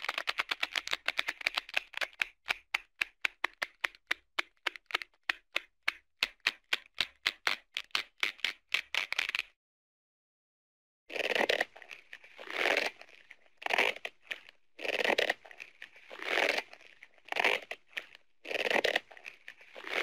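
Cartoon sound effects. A fast run of clicks that gradually slows and stops, then after a short gap about eight short scratching strokes, roughly one a second.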